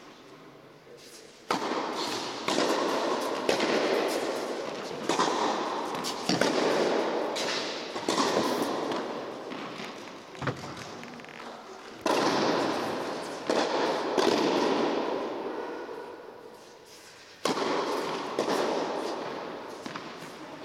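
Tennis balls struck by a racket, a series of sharp pops, several about a second apart, then pauses of a few seconds. Each hit rings on in the echo of a large indoor tennis hall.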